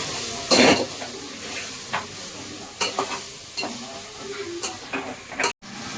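A spoon stirring a spice masala that sizzles as it fries in oil in a cooking pot, with the spoon clinking and scraping against the pot several times.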